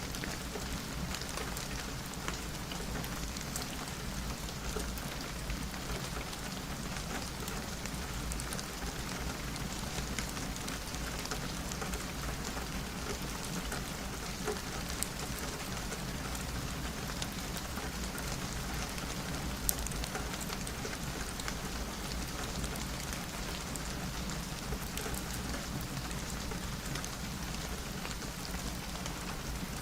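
Steady, even rainfall with scattered sharp ticks of single drops.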